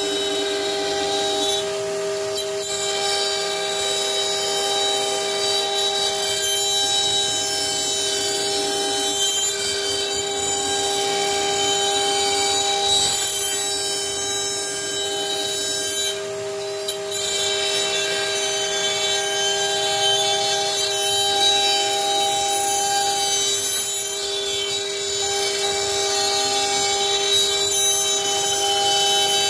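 CNC router spindle whining at a steady pitch while its bit mills a groove into a wooden board, with a hiss of cutting over it. The sound dips briefly about halfway through.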